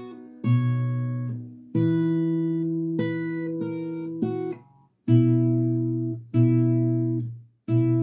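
Fingerstyle acoustic guitar playing a chord-melody passage slowly, plucked chords and notes ringing out one after another, with a short pause about five seconds in.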